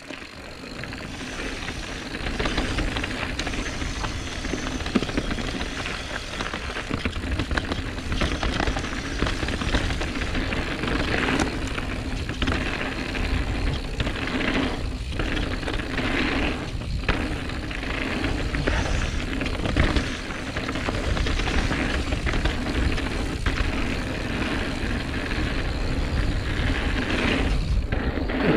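Mountain bike being ridden fast along a rough dirt trail: a constant rush of wind and tyre noise on the camera microphone, with frequent knocks and rattles from the bike over bumps. It grows louder over the first two seconds as speed builds.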